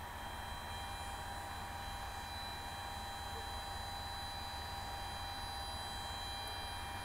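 Steady low electrical hum with a few faint, steady high-pitched whines over a hiss of background noise; nothing starts or stops.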